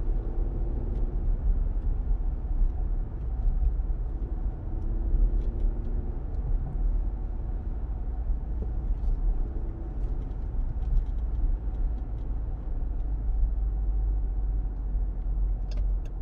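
Inside the cabin of a 2021 Dodge Durango GT on the move: a steady low rumble of road and tyre noise, with the 3.6-litre V6 humming underneath. The engine hum fades about six seconds in.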